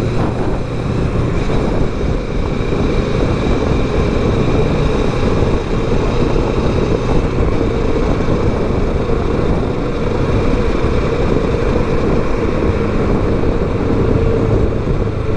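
Kawasaki Versys 650 parallel-twin engine running steadily at highway cruising speed, under dense, even wind and road noise.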